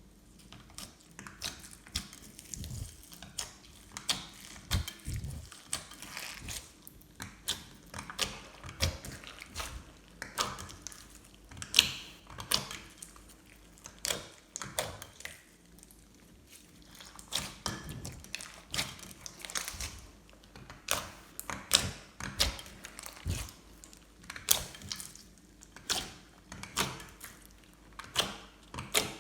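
Glossy slime being squished, poked and stretched by hand, giving irregular sticky clicks and small air-bubble pops, a few each second, with the odd soft thud.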